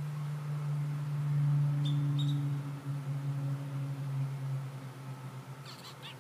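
A low steady drone swells to a peak and fades away over about five seconds. Short high chirping calls come in near the end.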